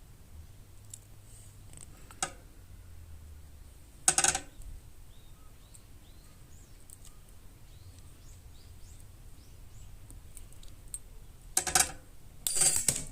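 Metal pieces clinking and clattering as they are handled: one click about two seconds in, a short clatter about four seconds in, and two more near the end. Faint bird chirps in between.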